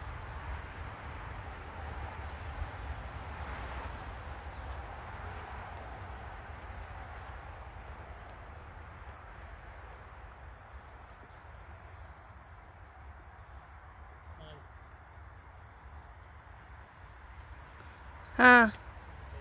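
A steady series of short, high chirps, about three a second, fading out after about twelve seconds, over a low steady rumble.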